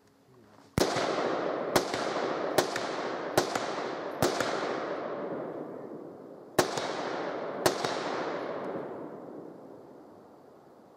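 AR-15 rifle firing seven shots: five at a steady pace, a short pause, then two more, each followed by a long echo.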